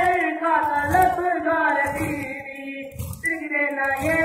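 Voices chanting an Urdu noha, a Muharram lament, in a sung melodic line, with a low thump about once a second keeping the beat.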